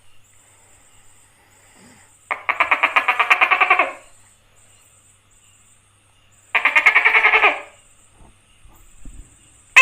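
Tokay gecko calling: two loud, rapidly stuttering calls, the first about a second and a half long, the second about a second, a few seconds apart.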